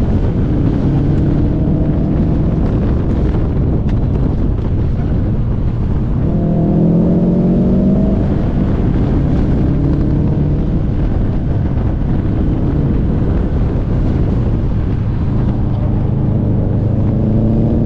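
Car engine pulling under acceleration, its pitch climbing twice, over heavy wind and road rumble.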